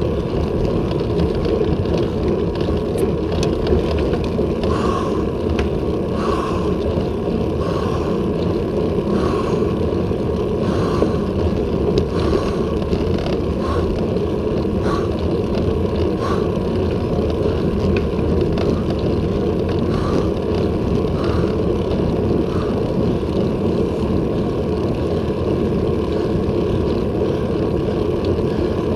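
Steady wind rush on the microphone and tyre-on-asphalt noise from a road bicycle climbing at about 18 km/h. Faint soft beats come roughly once a second through much of the stretch.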